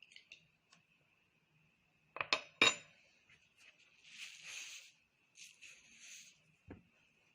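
Kitchen dishes and utensils clinking: three sharp clinks a little after two seconds in, then two short noisy stretches, and a dull knock near the end.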